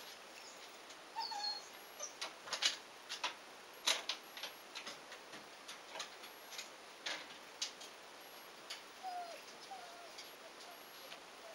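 Labrador puppy's claws and paws clicking and rattling on wire mesh panels as it clambers across them: irregular sharp taps, thickest in the first half, with a few faint short squeaks.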